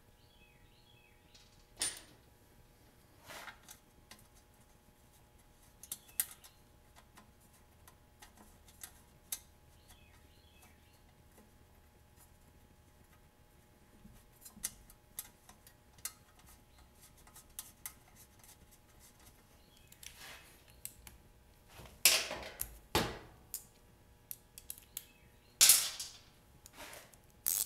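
Light plastic and metal clicks and knocks as a dipstick tube and dipstick are pushed back into a Briggs & Stratton lawn mower engine. Scattered single clicks, then a busier run of knocks about three-quarters of the way through and another sharp knock near the end.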